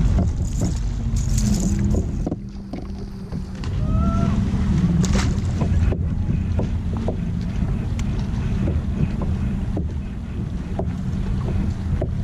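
Wind rumbling on the microphone over water moving around a plastic kayak, with a few small clicks and a brief chirp about four seconds in.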